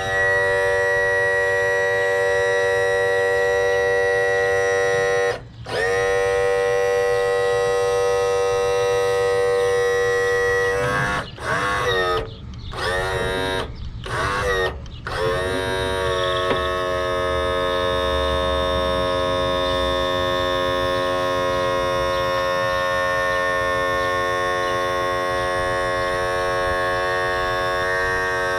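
Electric power tilt-and-trim motor on a Mercury 60 hp outboard running with a steady whine. It stops and restarts about five seconds in, stutters with short stops and wavering pitch a few seconds later, then settles into a steady run at a slightly different pitch, as the rebuilt hydraulic unit raises and lowers the engine.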